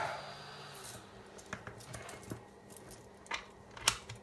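Light clicks and clinks of a soldering iron's cable plug being handled and fitted into the soldering station's socket, with two sharper clicks near the end.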